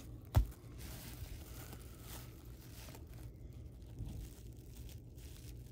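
Cardboard trading cards being handled and flipped through in the hands, with a sharp tap about half a second in, then faint sliding and rustling of card stock.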